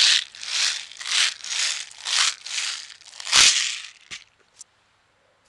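Steel BBs rattling in their container as it is shaken and tipped to pour them into a palm, in rhythmic shakes about twice a second. The shaking stops about four seconds in, followed by a couple of faint ticks.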